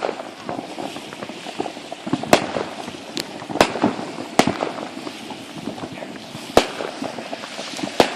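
Fireworks going off: a string of sharp bangs at irregular intervals, about six loud reports in eight seconds, over a continuous crackle of smaller pops.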